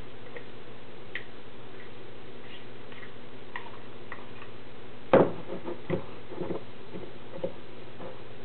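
Fork stirring thick brownie batter in a glass: scattered light taps and clinks against the glass, a louder knock about five seconds in, then a few more clinks. A steady low hum runs underneath.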